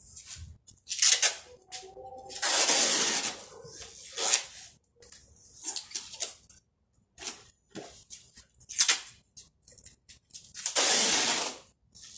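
Packing tape pulled off the roll in two long rips, about a second each, with scattered clicks and knocks of handling between them.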